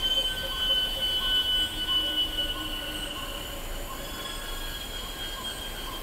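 Mangrove swamp ambience: cicadas droning steadily on a high, shrill tone, with softer calls pulsing several times a second beneath them.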